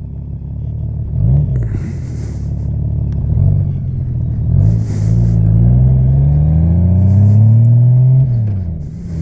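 Honda Valkyrie's 1832 cc flat-six motorcycle engine accelerating through the gears: the engine note climbs steadily in each gear and drops at each upshift, the longest pull coming just before a shift near the end.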